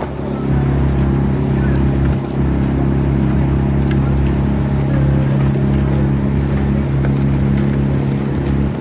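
Motor launch's engine running steadily at cruising speed, a loud even hum that dips briefly about two seconds in.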